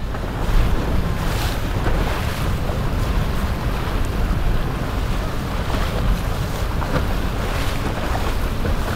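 Wajer 55 motor yacht cruising past on choppy water: a steady low rumble under the rush of water, with wind buffeting the microphone and now and then a splash.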